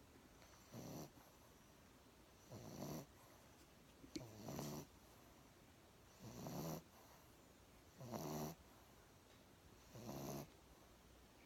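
A sleeping pet snoring in a slow, even rhythm: six soft snores, one about every one and a half to two seconds.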